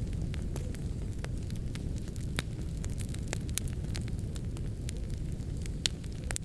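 Wood fire burning in a fireplace: a steady low rumble of the flames with frequent sharp crackles and pops scattered throughout, a couple of louder pops near the end.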